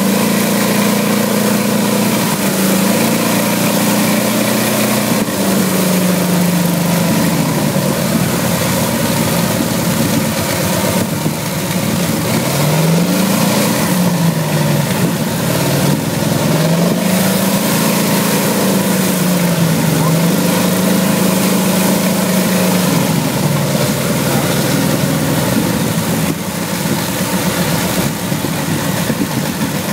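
Radial aircraft engine running on a test stand, its revs rising and falling several times, then settling into a steadier run near the end.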